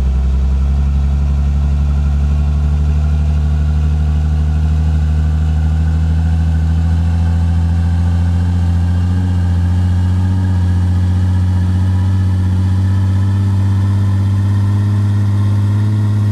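Pickup truck engine running steadily, its pitch slowly creeping up.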